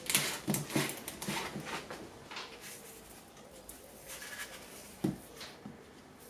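Plastic tub being opened and handled on a stone worktop: a run of light clicks and scrapes, then a single sharper knock about five seconds in.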